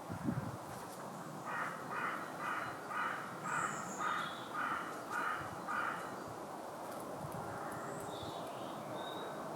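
A bird giving a quick run of about ten calls, roughly two a second, that stops after a few seconds. A short low thump comes just before them.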